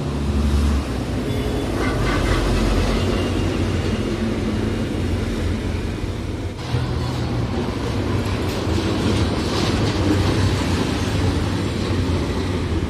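Tata truck's diesel engine running steadily, a loud low rumble with road noise over it, dipping briefly about six and a half seconds in.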